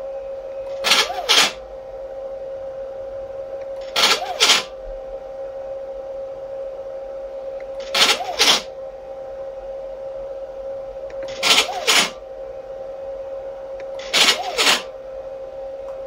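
NEMA 17 stepper motor jogging the Y axis of a DIY belt-driven CNC laser engraver in five short moves about every three and a half seconds, each a brief double buzz rising and falling in pitch. A steady high hum runs underneath.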